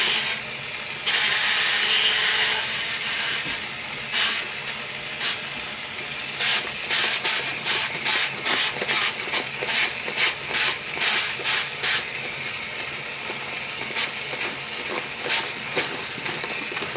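Battery-powered toy jigsaw running, its plastic mechanism clattering and clicking. A loud steady buzz comes near the start, and in the middle there is a run of regular clicks, about three a second.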